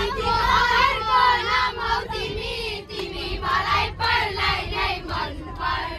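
A group of children singing together, several voices at once.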